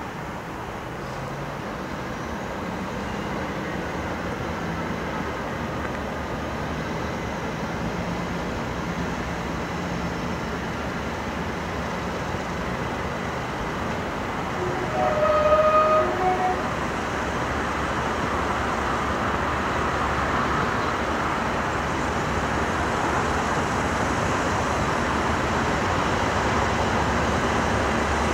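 Class 37 diesel locomotive approaching at the head of a train, its English Electric V12 engine and the train's running noise growing louder throughout. About halfway through, a short horn blast sounds in three notes, low, high, then low again; it is the loudest moment.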